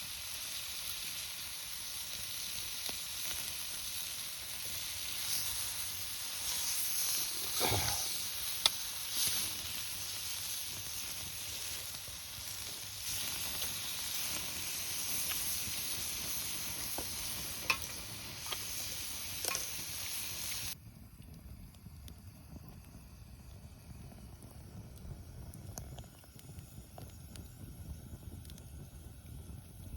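Food sizzling in a pan: a steady hiss with a few sharp clicks and knocks, stopping abruptly about two-thirds of the way through. After that a much quieter low rumble with faint ticks remains.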